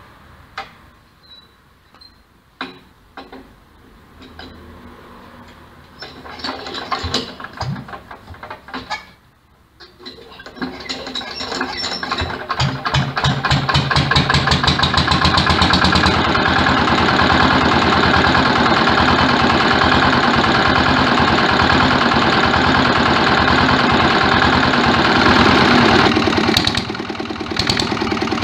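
Vintage single-cylinder stationary engine being hand-cranked, with scattered clanks from the crank, then catching about ten seconds in, picking up speed and settling into a steady, loud run. Near the end the sound changes abruptly to a quieter engine.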